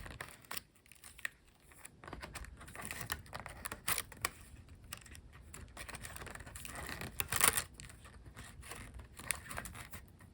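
Hands working the string of a bamboo shinai loose: cord rubbing and sliding through a knot, with irregular small clicks and rustles and a louder rustle about seven seconds in.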